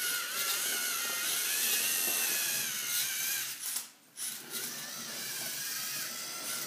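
LEGO Mindstorms robot's electric drive motors whining as it drives and turns in circles, the pitch wavering with speed. The whine cuts out briefly about four seconds in, then starts again.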